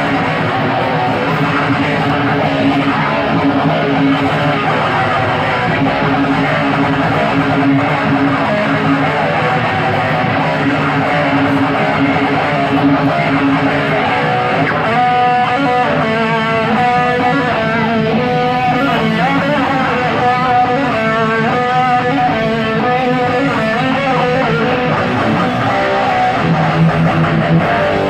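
Distorted electric guitar, an Epiphone Explorer with EMG pickups through a Peavey Vypyr 15-watt amp, playing heavy metal riffs. From about halfway it moves into a run of clearly separated higher single notes.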